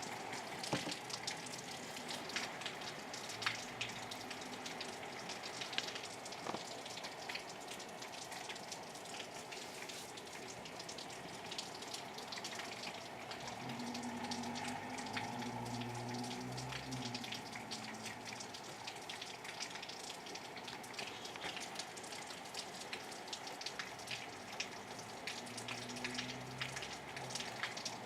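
Steady rain falling, with many individual drops ticking sharply on a hard surface. A faint low hum comes and goes around the middle and again near the end.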